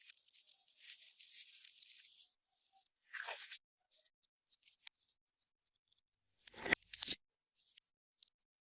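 Clear slime being stretched and worked by hand, giving a dense crackling for the first two seconds. A shorter crackle follows about three seconds in, and a louder squelching crackle with a dull thud near the end, with small clicks and pops in between.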